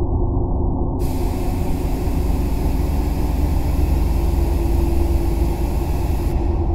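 Steady low engine rumble, the drone of a transport craft. A hiss joins about a second in and cuts off near the end.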